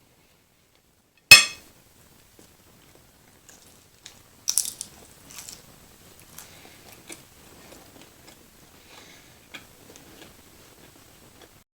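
Close-miked eating sounds: a single sharp snap about a second in, the loudest sound, then crisp crunching bites a few seconds later and softer, irregular chewing after that.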